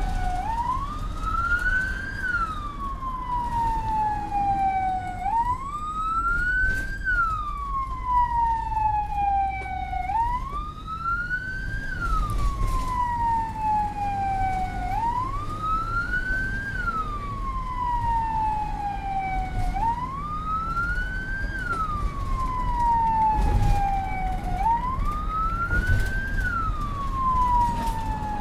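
SAMU ambulance siren wailing, heard from inside a moving vehicle's cab: each cycle rises quickly, then falls slowly, repeating about every five seconds. Steady engine and road rumble runs underneath.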